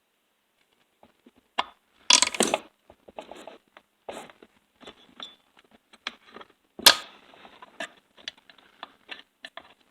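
Screwdriver and metal chain-brake parts of a chainsaw clicking, knocking and scraping while the brake spring is worked into place. A cluster of knocks comes about two seconds in, and the loudest, a sharp click, comes about seven seconds in.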